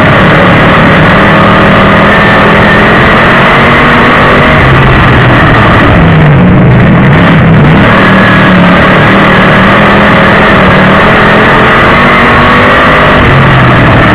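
A dirt-track sportsman modified's crate V8 engine at racing speed, heard from inside the cockpit. It is loud and steady, and its note dips and climbs back a couple of times about halfway through as the throttle is eased and reapplied.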